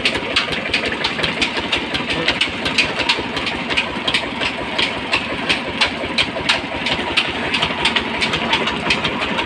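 A belt-driven village flour mill (atta chakki) running: a steady mechanical din with a fast, unbroken clatter.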